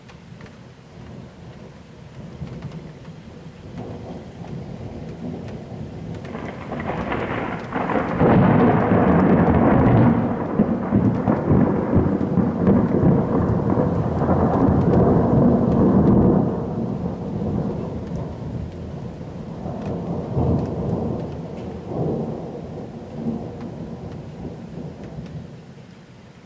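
Thunder rolling during a thunderstorm, with rain falling. The rumble builds, swells sharply louder about a third of the way in and stays loud for several seconds, then rolls on in smaller surges and fades.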